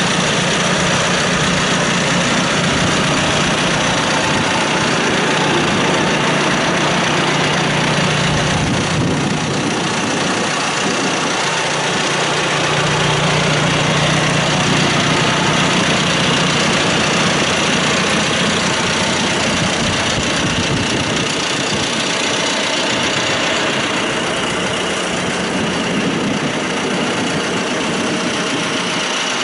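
John Deere 5115M tractor's diesel engine idling steadily, heard close up beside the engine bay.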